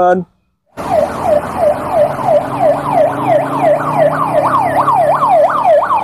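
Ambulance siren in a fast yelp, its pitch sweeping up and down about two to three times a second over a low steady hum. It starts about a second in after a brief silence.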